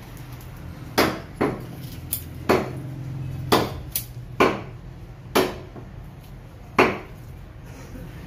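A butcher's blade striking a wooden chopping block in sharp, irregular knocks, about nine in all, as beef is cut on it.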